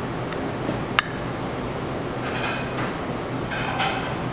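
A metal spoon clinks sharply once against the plate about a second in, over a steady background hum of the room; fainter clinks of dishes follow in the second half.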